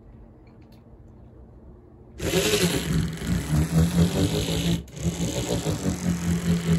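Die-cast HO scale Varney SW7 model locomotive running on the track, its motor and gears giving a loud, grinding buzz with a steady hum. The buzz starts about two seconds in and drops out for a moment near the middle. Its freshly cleaned and oiled mechanism is still noisy.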